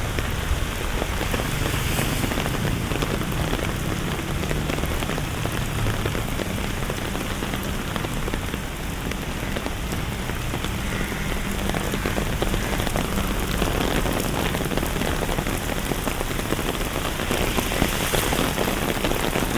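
Steady rain falling on hard surfaces, a dense even hiss of many small drop ticks with a low rumble underneath.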